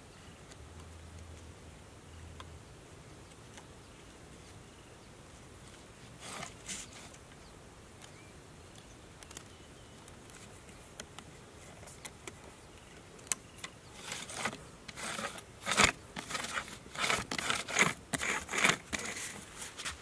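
Hands handling a plastic basket, string and sticks on sandy ground: a run of short rustles, scrapes and clicks. A couple of faint ones come about six seconds in, and they grow thicker and louder from about thirteen seconds on.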